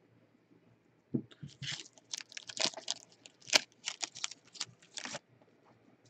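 Foil wrapper of a 2017 Panini Unparalleled football card pack being torn open and crumpled by hand: a quick run of sharp crackling rips that starts about a second in and stops about five seconds in.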